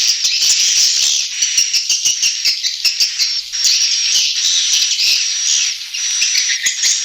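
Swiftlet lure call: a dense chatter of many swiftlets' high chirps and twitters overlapping without pause, laced with rapid clicks. It is a call track played to draw swiftlets into a nesting house.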